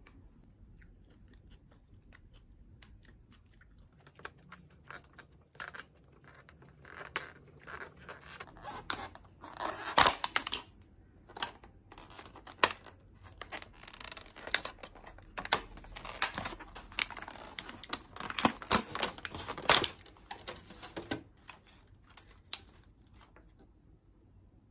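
Thin clear plastic food clamshell being pried open and handled, a run of sharp crackles and clicks from about four seconds in, loudest about ten seconds in, and dying away a few seconds before the end.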